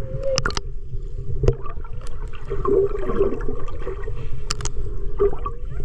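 Muffled sloshing and gurgling of shallow seawater heard by a camera held just under the surface, over a low rumble, with several sharp clicks.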